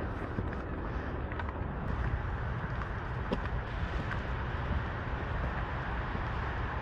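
City street ambience: a steady hum of traffic, with a few faint clicks.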